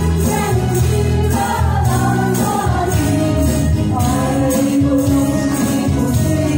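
Women singing a pop song into handheld microphones over an amplified karaoke backing track with a steady beat and light percussion.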